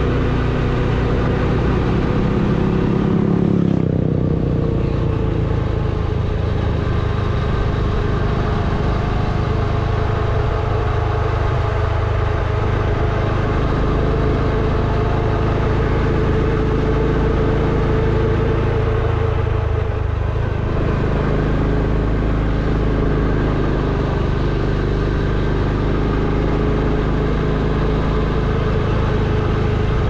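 Motorcycle engine running steadily while riding, over a constant rushing noise. Its pitch changes about four seconds in, then holds fairly steady.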